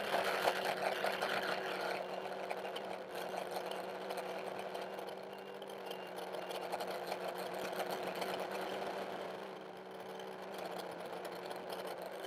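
Armattan CNC 355 quadcopter's electric motors and propellers whining steadily in flight, heard through its onboard camera, getting louder right at the start as the throttle comes up.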